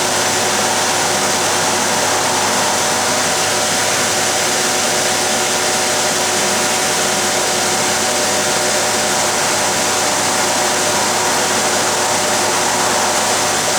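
Bridgeport vertical machining centre running a part program: a steady, even machine whir with several steady tones over a hiss.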